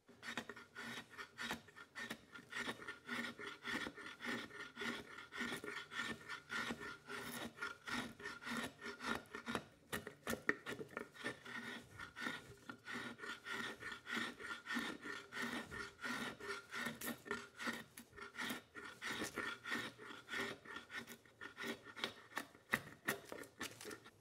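Hand-forged draw knife, made from a leaf spring, shaving a log held in a vise: repeated scraping cuts through the wood, a few strokes a second.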